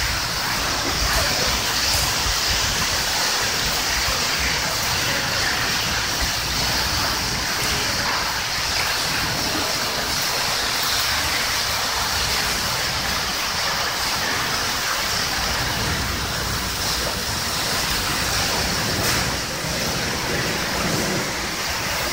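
Steady rushing of muddy floodwater running over the ground in heavy rain, a constant hiss with no breaks.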